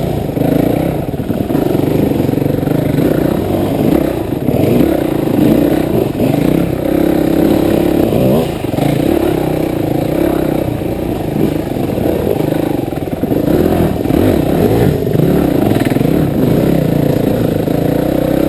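The rider's own dirt bike engine, heard up close, running steadily as it is ridden along a trail. Its pitch rises and falls with the throttle.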